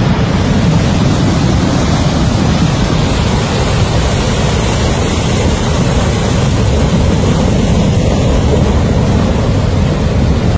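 Flash-flood torrent rushing down a rocky mountain stream bed: a loud, steady rush of water with a heavy low rumble. It breaks off abruptly at the end.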